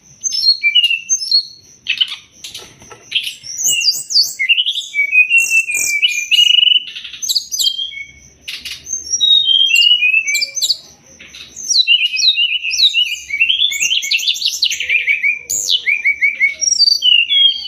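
Brown-chested jungle flycatcher (sikatan rimba dada coklat, SRDC) singing a fast, almost unbroken stream of varied chirps, trills and sliding whistles, used as a masteran song. A thin steady high tone runs beneath it.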